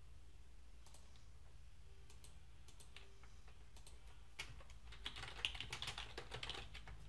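Typing on a computer keyboard: a few single clicks, then a quick run of keystrokes from about four seconds in.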